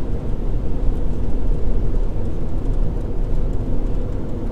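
Steady road noise inside a moving car: an even low rumble of tyres and engine.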